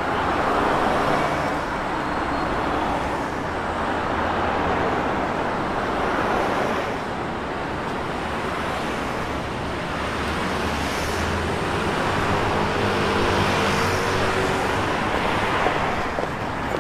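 City road traffic: a steady wash of cars passing, rising and falling, with the hum of an engine close by in the second half.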